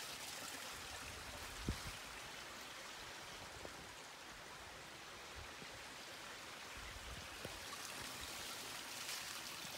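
Small rocky stream running and trickling over stones, a steady even rush, with a soft knock about two seconds in.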